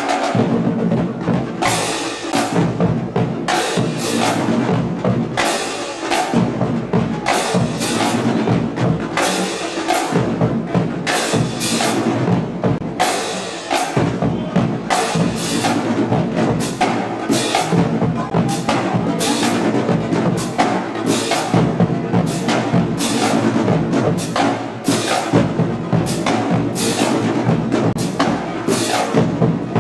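Marching band drumline playing a steady, driving cadence, with bass drums prominent and a dense run of drum strikes.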